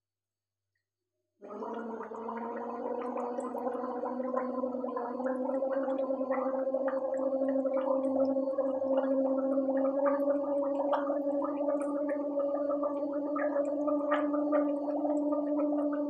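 A woman gargling warm salt water: one long, unbroken gargle that starts about a second and a half in, a steady hummed tone under rapid bubbling, rising slightly in pitch and getting a little louder as it goes.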